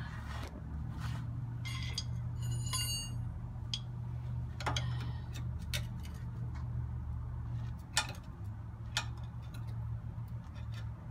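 Scattered metallic clicks and clinks of hand tools and hardware as the old shock absorber on a Jeep Wrangler JK is worked loose, with a short ringing clink about two seconds in. A steady low hum runs underneath.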